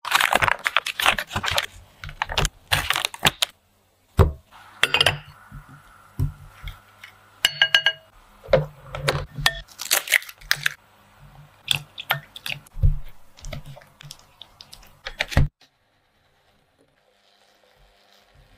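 Close-up food-preparation sounds: a butter wrapper being crinkled and unwrapped, an egg cracked over a glass bowl, and thick batter worked with a spatula. They come as a run of sharp, irregular clicks, taps and crackles that stops about three seconds before the end.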